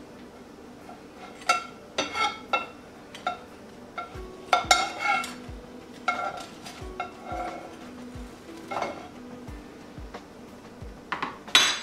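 Metal spatula and table knife scraping and clinking against a nonstick frying pan while lifting a pan-toasted bread pizza, a run of short irregular knocks and scrapes with another cluster near the end.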